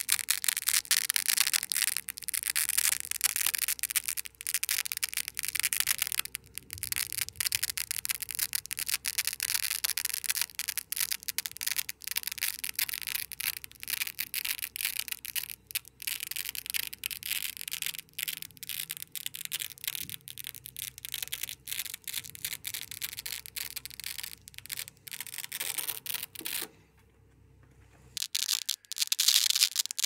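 A black loop strip being slowly peeled off a nano hook-base Velcro strip, giving a dense, continuous fine crackle. The crackle stops for about a second and a half near the end, then starts again.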